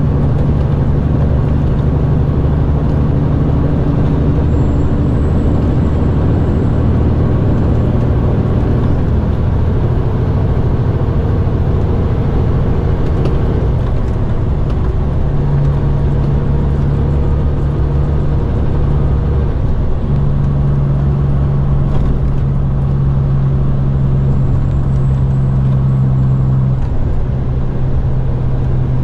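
A road train's diesel engine droning steadily under way at highway speed, heard from inside the cab, with road and tyre noise. The engine's hum shifts in pitch about halfway through and again about two-thirds of the way through.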